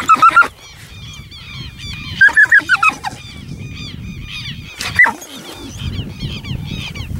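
Shrill animal calls: two loud runs of rapid repeated notes, one at the start and one about two seconds in, and a single sharp call about five seconds in. Many softer chirping calls go on throughout over a low rumble.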